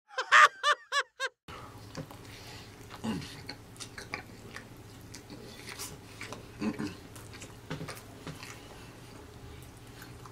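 Close-up chewing of a crispy fried chicken sandwich: wet smacking and crackling bites with a couple of short "mm" hums, after a brief voice clip of a few quick high-pitched syllables at the start.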